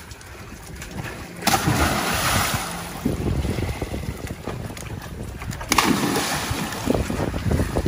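A person jumping off a boat and splashing into lake water, a sudden splash about six seconds in, with wind noise on the microphone.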